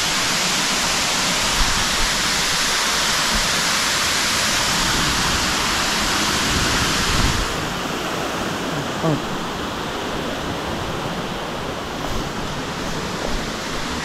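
Waterfall, water pouring down in a steady hiss. About halfway through the sound turns duller and slightly quieter.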